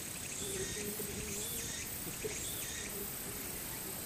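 Insects chirping in the grass: a steady high trill with a rasping chirp repeating about once a second.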